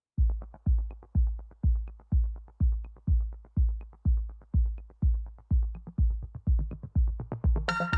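Electronic background music: a drum-machine kick thumping steadily about twice a second with light ticks between beats, joined near the end by bright synthesizer chords.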